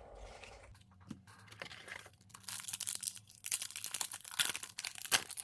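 Crinkling and tearing of a foil trading-card pack wrapper being torn open by hand, a dense run of crackles in the second half.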